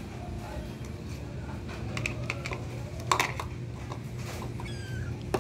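Light clicks and rustling as newborn kittens crawl and jostle, with a louder click about three seconds in, over a steady low hum. Near the end a kitten gives faint, thin, high mews.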